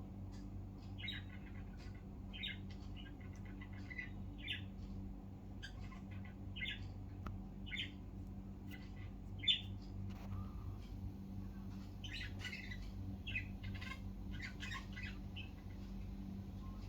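Budgerigar chatter: short chirps and squawks in quick, irregular runs, busiest in the second half, over a steady low hum.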